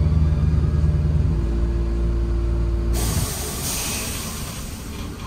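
A heavy vehicle's engine running with a steady low drone. About three seconds in it gives way to a sudden loud hiss of air brakes being released, which fades over the next two seconds.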